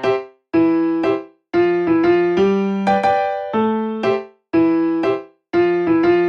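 Background music: a gentle piano or electric piano playing short phrases of struck notes and chords, each note ringing and fading, with brief pauses between phrases.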